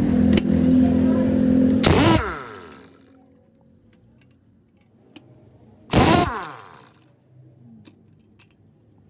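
An engine running and building in level, cut off about two seconds in by a loud crash with ringing; a second, similar crash follows about six seconds in, with light metallic clinks in between.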